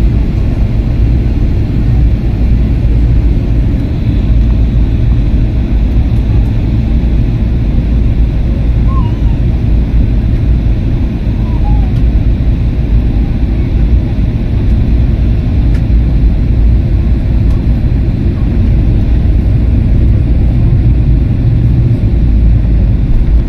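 Loud, steady low rumble of an airliner heard from inside the cabin on final approach, the drone of the engines and the air rushing past the fuselage.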